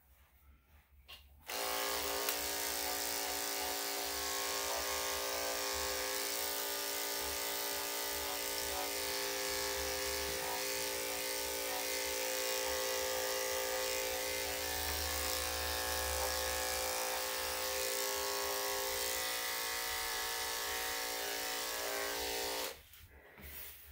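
Corded electric dog-grooming clippers with a number 10 blade, switched on about a second and a half in and running with a steady hum while clipping a Yorkshire terrier's coat, then switched off about a second before the end.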